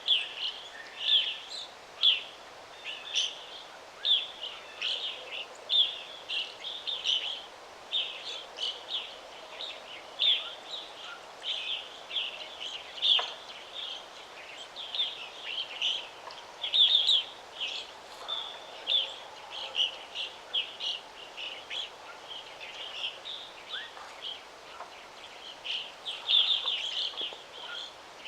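Birds chirping in quick, repeated short calls one after another, over a faint steady background hiss.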